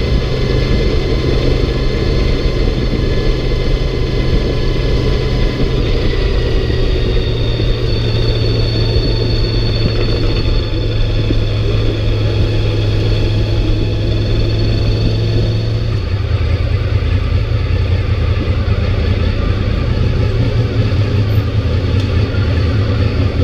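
Honda VFR's V4 engine running at a steady cruise under a constant rush of wind noise while riding. The engine note drops slightly about two-thirds of the way through, and the sound cuts off suddenly at the end.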